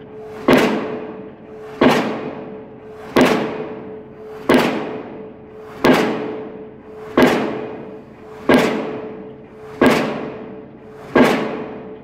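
Diesel pile-driving hammer in crane-hung leads striking a steel H-pile: a sharp bang with a ringing fade, repeating evenly about every 1.3 seconds, nine blows in all. A steady hum runs underneath.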